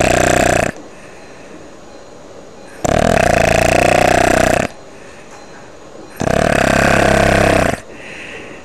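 A person snoring loudly, the uvula vibrating. Three long snores come about three seconds apart, the first ending under a second in, and a softer breath follows near the end.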